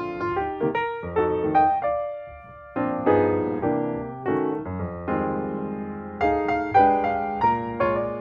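Background piano music: a melody of struck notes, each fading after it sounds, with a short pause about two seconds in.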